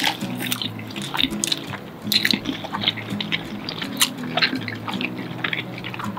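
Close-up mouth sounds of people chewing takoyaki: wet clicks and smacks scattered irregularly, over soft background music of held low notes.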